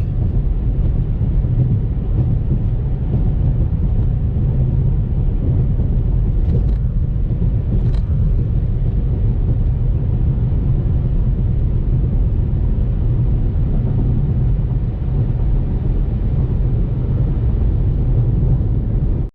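A steady low rumble, with two faint short ticks around the middle.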